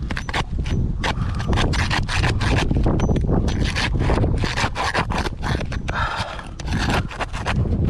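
Metal scraper being worked under sealed asphalt roof shingles, a run of short, irregular scraping and prying strokes; the shingles are stuck fast and will not unseal.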